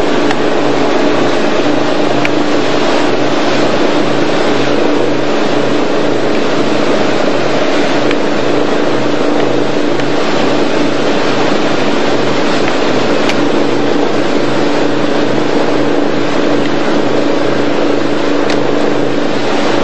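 Motorboat engine running steadily under way, with a steady rushing noise over it.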